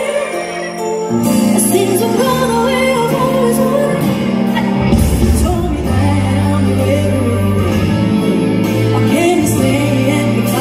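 A woman singing a pop song into a microphone over band accompaniment. The bass comes in about a second in and grows fuller and heavier about five seconds in.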